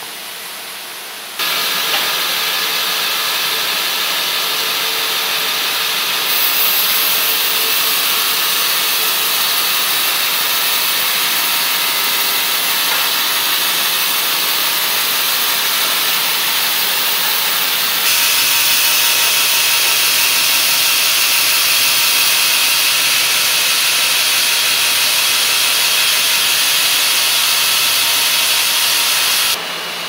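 Sawmill machinery running, including a band saw cutting lengthwise through a log, as a steady, loud, hiss-like din strongest in the high pitches. The sound shifts abruptly to a new level about a second and a half in, around six seconds, around eighteen seconds and just before the end.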